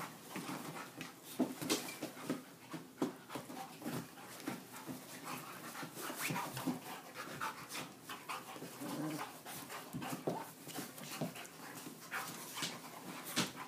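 An Old English Sheepdog and two small dogs play-fighting on a dog bed: scuffling and many short, irregular dog noises.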